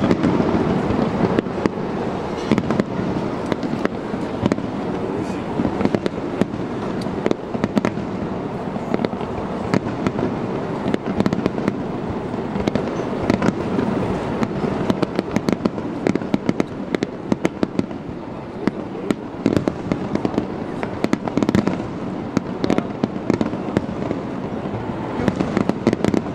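Fireworks going off: a steady, dense crackle of many small pops, thickest in the last few seconds.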